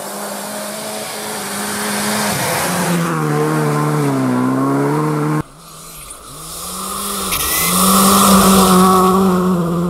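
Rally car engine revving hard: the note falls and then climbs again, then cuts abruptly about halfway through to a second stretch where it dips briefly twice and rises to a loud, held high-rev pitch.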